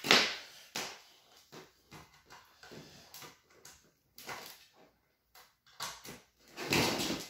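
Cables and plugs being handled: a run of short plastic clicks, knocks and rustles as an HDMI cable is plugged into the back of a cable TV set-top box. The loudest moments are at the very start and a longer rustle near the end.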